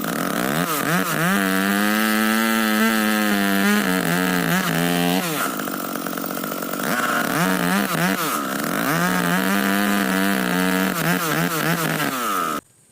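The two-stroke engine of a 070 chainsaw revving to high speed and holding there, easing off in the middle and then revving up and holding again. It cuts off suddenly near the end.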